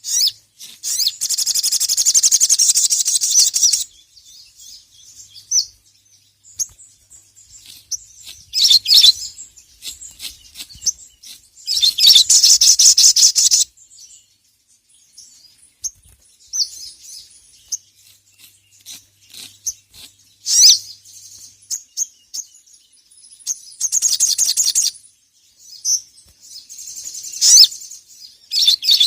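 Sogon (sogok ontong, little spiderhunter) singing in its fast chattering 'ngeriwik' style: rapid high-pitched trills lasting one to three seconds, repeated about six times with short chirps in between.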